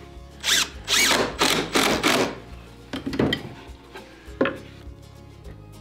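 Makita cordless impact driver run in several short bursts, driving screws into plywood without pre-drilling. Then a couple of knocks as the wooden board is handled.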